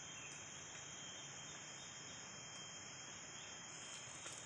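Steady, high-pitched insect chorus: a continuous shrill drone from crickets or cicadas in the forest.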